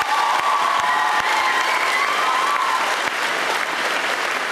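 Audience applauding steadily in a hall at the end of a stage performance, with a held pitched sound riding over the clapping for the first three seconds.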